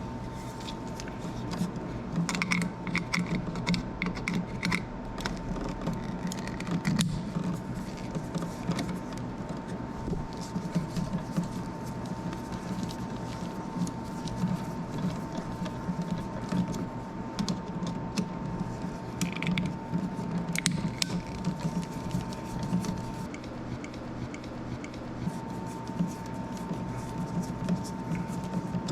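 Scattered small clicks and taps of pliers and stiff copper wire being handled while the white wires are shaped for an outlet's screw terminals, over a steady low hum and a thin steady whine that drops out for a couple of seconds near the end.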